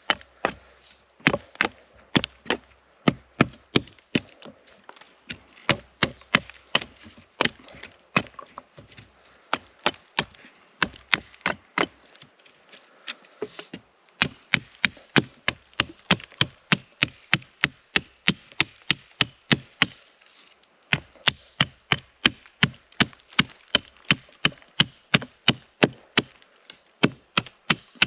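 Hatchet chopping along a wooden stick, shaping it into a digging stick: a steady run of sharp wooden chops, about two to three a second, with two short pauses.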